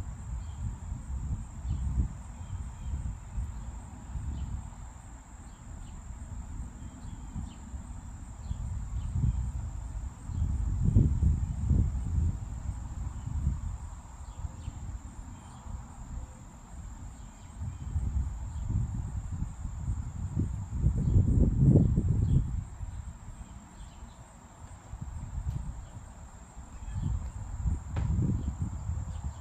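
Insects trilling in one steady, high-pitched drone. Under it, a low rumbling noise swells and fades several times and is loudest around the middle and near the end.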